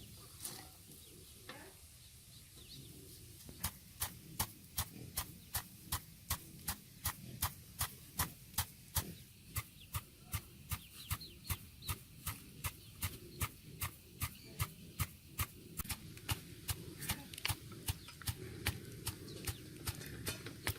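A knife chopping on a cutting board, mincing meat for larb: a steady run of sharp strikes, about two to three a second, that starts a few seconds in.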